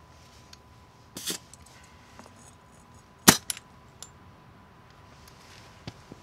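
A brief hiss of air as a tire inflator's chuck is pulled off the valve stem, then a single sharp clack about three seconds in, the loudest sound, followed by a few faint ticks.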